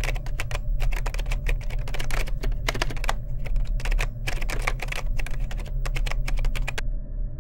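Typing sound effect: rapid, irregular runs of keyboard clicks over a steady low hum. Near the end the typing stops and only the hum is left.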